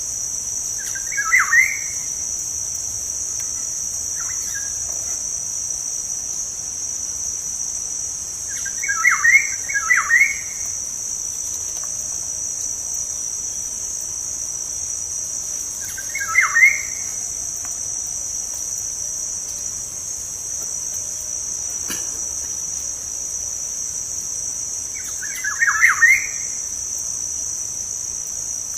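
Black-naped oriole (kepodang) calling four short phrases, several seconds apart, over a steady high insect trill.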